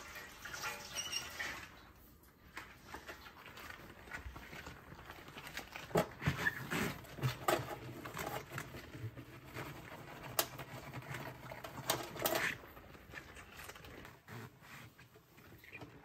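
A damp cloth scrubbing and wiping the inside walls of a microwave oven with baking soda: scattered rubbing and scratching, with a few sharper knocks in the middle stretch.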